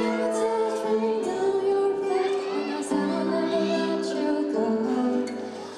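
Live music: female vocals singing a slow song over acoustic guitar and electronic keyboard accompaniment, with low bass notes coming in and out.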